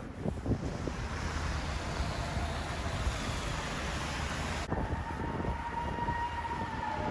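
Traffic noise from a large passing vehicle, with a steady whine that starts about two-thirds of the way through and slowly falls in pitch.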